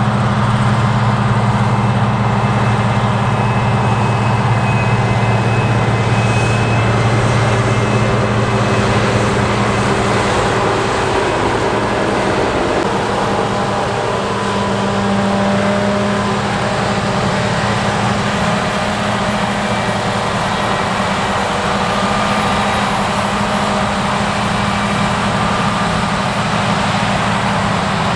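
Heavy diesel harvest machinery running steadily: a deep, even engine drone with a constant haze of mechanical noise over it.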